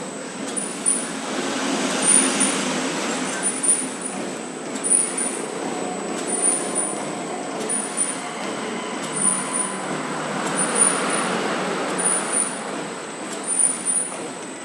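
Plastic bag cutting machine running, with a steady mechanical din and a regular cutting stroke repeating a little more often than once every second and a half.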